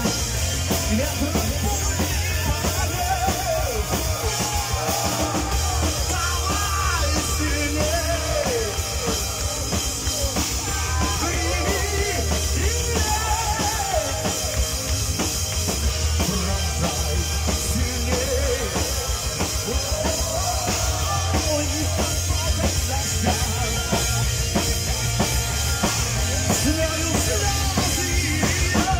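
Live rock band playing a song: drum kit, electric guitars and bass guitar, with a man singing into a microphone.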